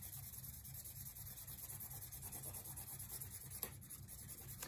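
Faint scratching of a red pencil scribbling back and forth on a small piece of paper card, colouring it in, with a small click about three and a half seconds in.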